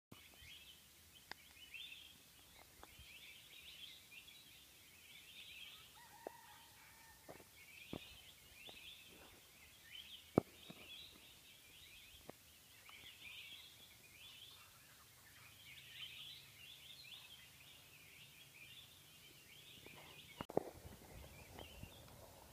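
Faint forest-canopy wildlife: repeated bursts of high chattering calls, with a brief steady whistled tone about six seconds in and a few sharp snaps or knocks, the loudest about ten seconds in and another near the end.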